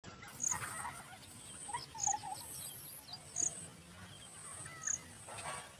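Outdoor nature ambience of bird calls: a short, high-pitched chirp repeats about every second and a half, with other scattered chirps and short gliding calls in between.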